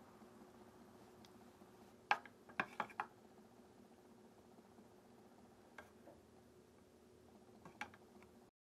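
Metal spoon stirring melted chocolate in a clear plastic measuring cup, clicking lightly against the cup: a quick run of four clicks about two to three seconds in, then single clicks later, over a faint steady hum.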